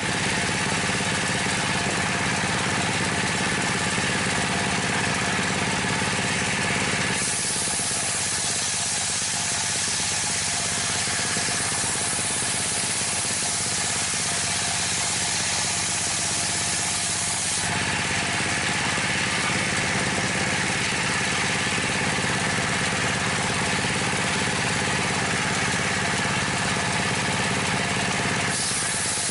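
Dompeng (Dongfeng-type) single-cylinder diesel engine running steadily under a homemade circular table saw, the blade spinning free. From about seven seconds in to about eighteen seconds the blade cuts through a large plank, adding a loud, hissing rasp over the engine. A second cut begins near the end.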